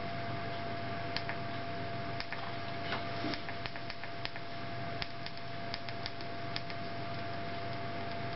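Small tactile push buttons on a homemade intervalometer control board clicking as they are pressed, a dozen or so irregular clicks, some in quick runs. A steady thin whine and hiss sit underneath.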